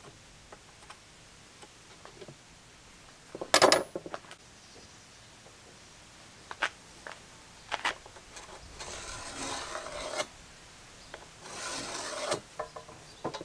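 A pencil scratching along a metal straightedge across a plywood sheet in two strokes of about a second each, near the end. Before that, a loud clatter of tools handled on the wood, the loudest sound, and a few light knocks.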